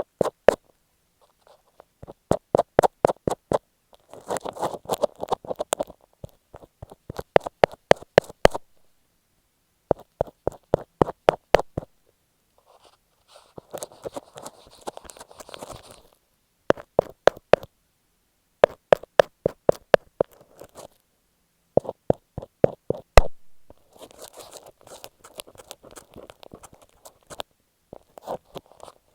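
Fingers tapping and scratching on masking tape stuck over an earphone microphone, very close: short runs of rapid taps broken by pauses, alternating with stretches of scratchy rubbing.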